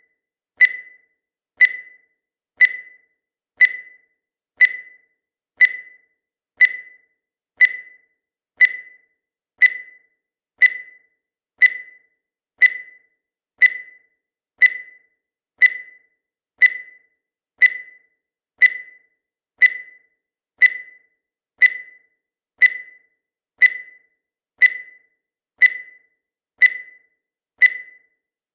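Countdown timer sound effect: a short, high electronic beep once every second, each fading quickly, in a steady unbroken rhythm.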